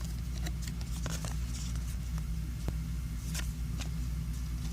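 Trading cards being handled and slid off a stack, with scattered light ticks and soft rustles of card stock, over a steady low hum.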